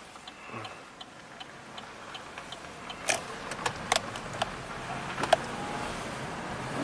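Inside the cab of a 2014 Chevy Silverado V8 pulling away at low speed: faint engine and road noise under a light, even ticking about three times a second, with a few sharper clicks in the middle.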